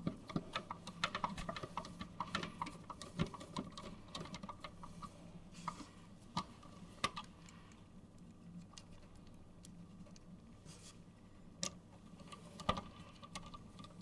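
Small screwdriver driving the hard drive mounting screws into a sheet-metal PC case: a run of light metallic clicks and ticks, dense for the first few seconds, then scattered single clicks.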